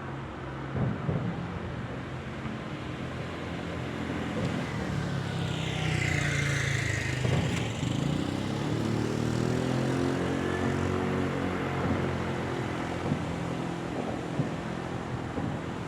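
A motor vehicle's engine running and passing close by, its pitch shifting as it goes past about halfway through.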